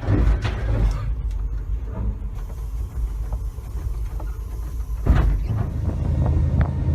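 Train locomotive rumbling steadily while plowing through snow-covered fallen trees, with a few knocks early on. About five seconds in a loud bang marks a strike on a tree, followed by a run of sharp cracks as the branches break against the front of the train.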